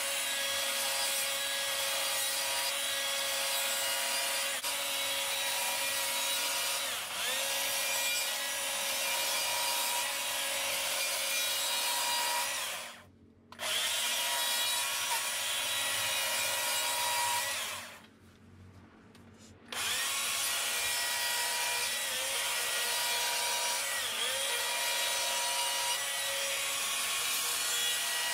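Small-bar chainsaw running and cutting into wood, carving the branches of a tree carving. It drops out sharply twice: briefly near the middle, and for about two seconds a few seconds later.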